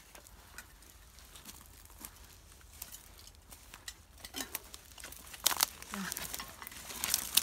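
Footsteps in wellington boots crunching through dry twigs, dead stalks and leaf litter, a scatter of crackles and snaps that grows louder and busier over the last couple of seconds.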